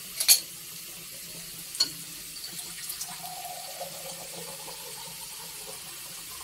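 Onions, green chillies and spices sizzling in mustard oil in a steel kadhai: a steady hiss, with a metal spatula clicking against the pan near the start and again about two seconds in.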